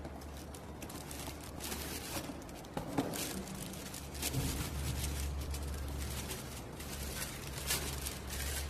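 Clear plastic wrapping crinkling and rustling in irregular crackles as the boxed unit is pulled out and handled, with the scrape of cardboard packing.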